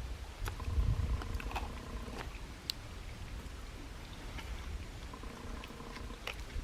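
Scattered light clicks and knocks of people eating, over a low rumble. A faint steady hum comes and goes twice.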